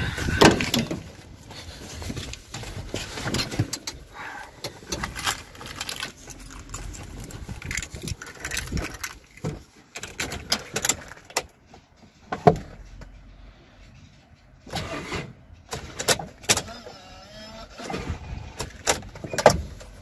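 Irregular clicks, knocks and rustling as someone climbs into a van's cab, with louder knocks near the start, about halfway, and near the end. The engine is not running.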